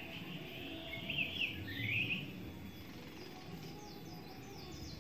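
Grey-cheeked bulbul (cucak jenggot) calling: a quick run of downward-sweeping chirps about one to two seconds in, then fainter, higher, rapid falling notes in the second half, over a steady low background rumble.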